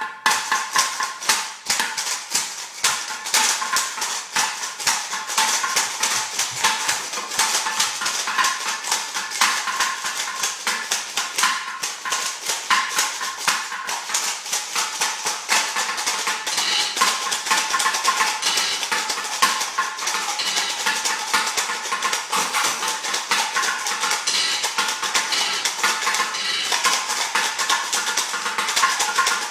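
Kitchen containers shaken and tapped by hand as improvised percussion: a busy, continuous rattling and clicking of metal pots and canisters in a fast rhythm.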